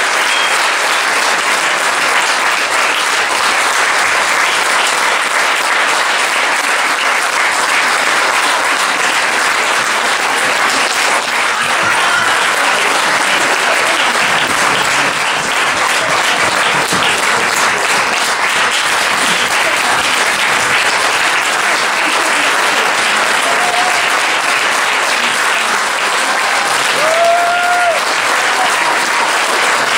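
Theatre audience applauding steadily throughout, with a couple of brief voice cheers near the end.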